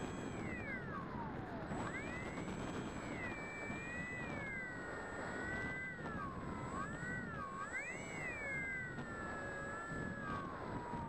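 Electric motor and propeller of a Bixler foam RC plane, heard from its onboard camera as a whine that rises and falls with the throttle over a steady rush of wind. The pitch dips at first, climbs again about two seconds in, wavers, and falls away steadily near the end as the motor is throttled back.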